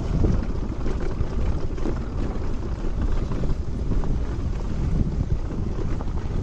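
Steady wind buffeting the microphone of a moving motorcycle, a dense low rumble of wind mixed with the bike's running and road noise.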